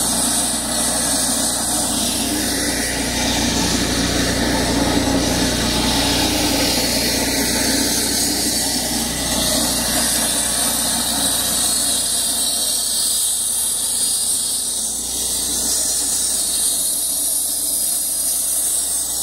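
Engine-driven walk-behind concrete floor saw running steadily, its water-fed blade cutting an expansion joint into a fresh concrete slab.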